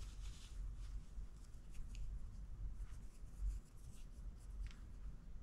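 Faint rustling and rubbing of a knitted hat and its yarn being handled while a yarn needle is pushed down through the crown, with a soft bump about three and a half seconds in, over a low steady hum.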